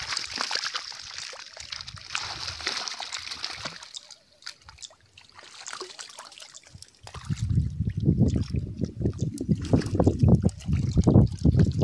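Shallow water splashing and trickling for the first few seconds, then a quieter stretch. From a little past halfway a louder, gusty low rumble takes over.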